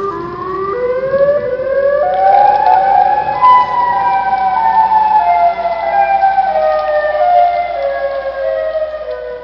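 Wailing, siren-like tones: several pitches overlap, each sliding slowly downward while new ones enter higher, growing louder about two seconds in and fading toward the end.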